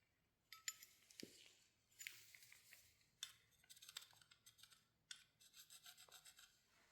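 Faint scraping and scratching in short, irregular bursts, with a few sharp clicks: hand work on a piece of metal flat stock.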